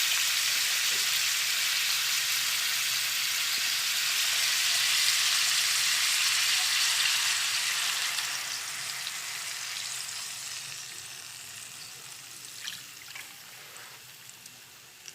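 Squid sizzling in hot oil in a pan as soy sauce goes in. The sizzle is loud for the first half, then dies away steadily, with a few light clicks near the end.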